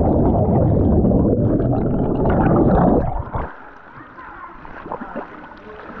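Muffled underwater rush of churning water and bubbles as the camera plunges into a swimming pool, loud for about three seconds, then dropping suddenly to a much quieter muffled underwater sound.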